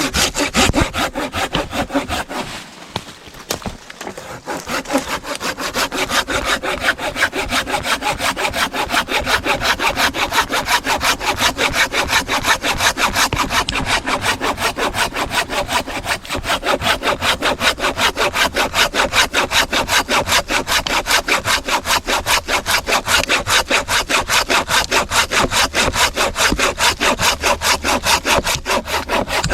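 Hand saw cutting through a large piece of dead hardwood with quick, even back-and-forth strokes. The strokes falter briefly a few seconds in, then run on steadily.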